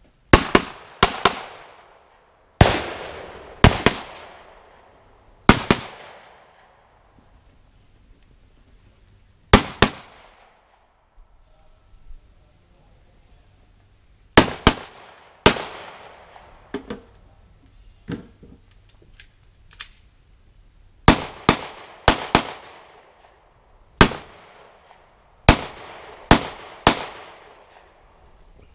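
Handgun shots fired in quick pairs (double-taps), with gaps of one to four seconds between strings. Each shot is a sharp crack with a short trailing echo.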